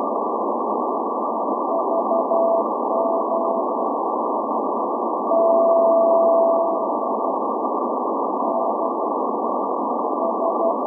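Morse code from the SVO Athens maritime coast station's channel marker on 8424 kHz, received on a shortwave SDR in CW mode. A keyed tone of about 700 Hz sounds over steady band-limited static, in dots and dashes, with one long steady tone of about a second and a half near the middle.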